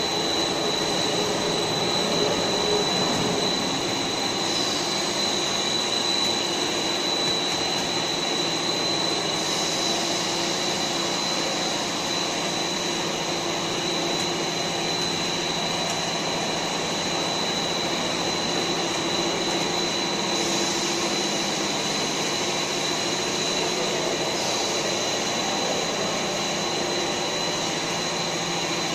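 PVC pipe extrusion line running: a steady machine drone with a constant high-pitched whine, and a higher hiss that comes in and drops out twice.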